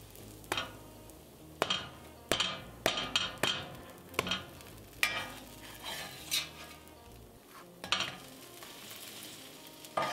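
Slotted metal spatula scraping and knocking against a stainless-steel frying pan, about a dozen sharp strokes, as it lifts and turns a grilled cheese sandwich stuck to the pan. Steady sizzle of butter frying underneath.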